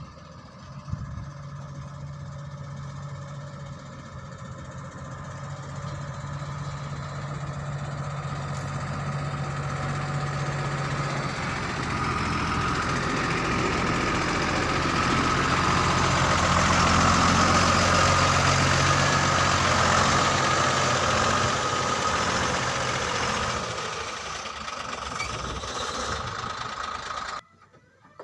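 Heavy diesel engine of a backhoe loader or tipper truck running under load. It grows louder and works harder toward the middle, eases off, then cuts off suddenly near the end.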